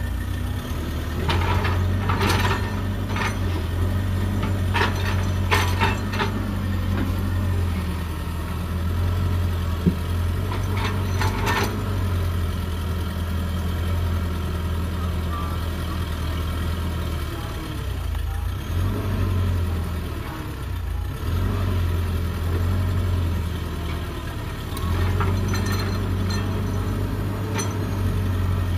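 Hydraulic excavator's diesel engine running steadily with a deep drone, with several clusters of sharp cracks and snaps in the first dozen seconds. The low engine note thins briefly about two-thirds through.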